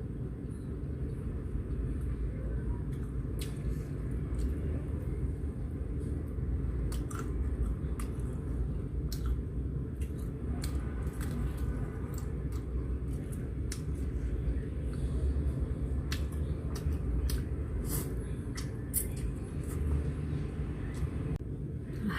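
Person eating a bowl of Korean gomtang noodle soup: scattered short clicks and soft mouth and eating noises over a steady low rumble.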